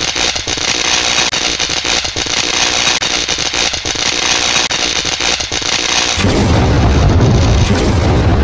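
Dense crackle of many rapid shot-like pops for about six seconds. Then a deep, rumbling explosion-like blast suddenly takes over and carries on.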